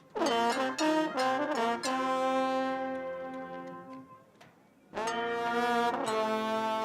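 Street brass band horns playing together: a quick run of short chords that opens with a downward smear, then a long held chord that fades away. After a brief pause about four seconds in, the horns come back in together on sustained chords.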